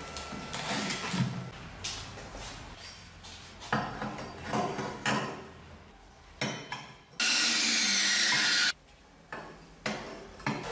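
Lengths of hollow steel tube knocking and clattering as they are handled and set down on a plywood workbench, a string of separate knocks. A little past the middle comes a loud, steady hiss that lasts about a second and a half and cuts off suddenly.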